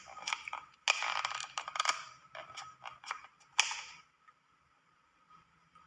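A run of quick clicks and scrapes, fast and irregular, that stops about four seconds in.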